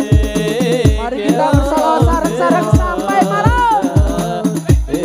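Hadroh ensemble playing: frame drums with deep bass beats about twice a second and a jingling rattle, under an ornamented singing voice in Islamic devotional style.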